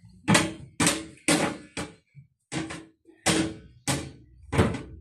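A run of eight hard knocks or bangs, a little under two a second and unevenly spaced, each dying away quickly.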